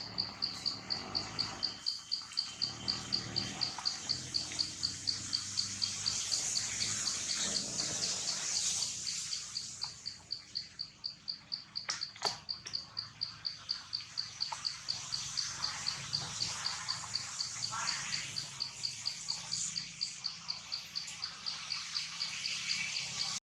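An insect, such as a cricket, chirping steadily in a high-pitched, even rhythm of about three chirps a second.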